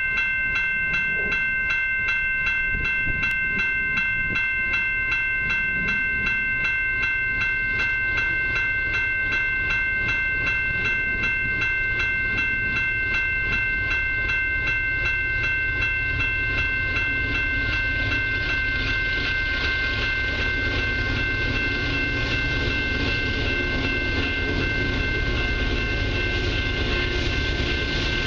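A steady, high ringing warning tone pulses several times a second throughout, typical of a railway warning bell. Under it, the low rumble of an approaching CP freight train's diesel locomotives grows louder over the last ten seconds or so.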